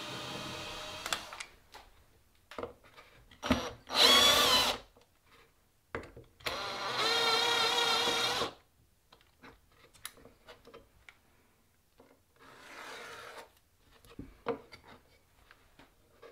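Cordless drill driving screws through metal shelf brackets into an MDF panel: short whining runs around four seconds in and again from about six and a half to eight and a half seconds, the pitch wavering under load, with clicks and knocks of handling between. A steady motor whine stops just over a second in, and a quieter, shorter run comes near the end.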